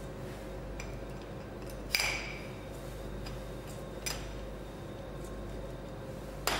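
Small porcelain saucers clinking as they are handled and set down on a stainless-steel kitchen counter: three sharp clinks with a brief ring, the loudest about two seconds in, the others around four seconds in and near the end. A steady low hum underneath.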